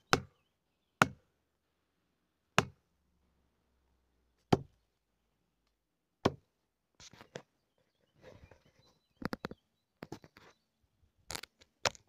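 Plastic felling wedge being hammered into the felling cut at the base of a tree, to lift and tip the trunk. Sharp single knocks about every one and a half to two seconds, then fainter, quicker knocks in twos and threes in the second half.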